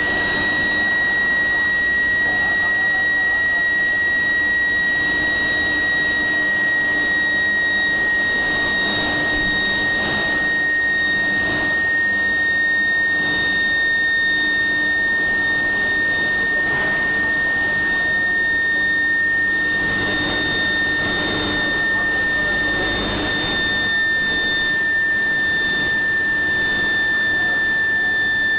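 Medium-frequency induction heating furnace running: a loud, steady, high-pitched whine that drifts slightly lower in pitch, with faint knocks now and then.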